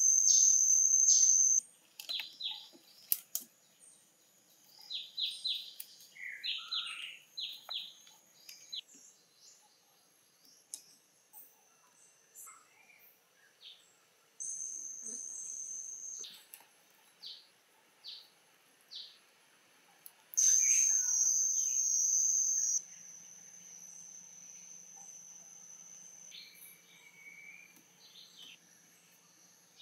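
Tropical forest ambience: scattered bird chirps and calls, and a loud, high, steady insect buzz that switches on and off abruptly three times. There are a few sharp clicks early on.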